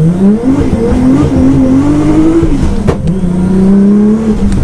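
Nissan Skyline GT-R's RB26DETT twin-turbo straight-six pulling under load, heard from inside the car: the engine note climbs, holds, then falls away. A single sharp pop comes about three seconds in, before the note settles steady again.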